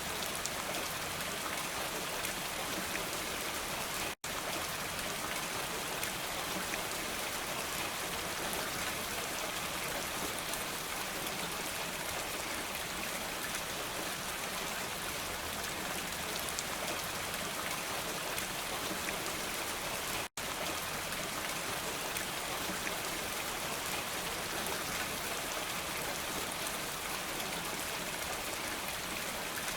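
Steady rain falling, an even hiss of many drops. The sound cuts out for an instant twice, about four seconds in and again about twenty seconds in.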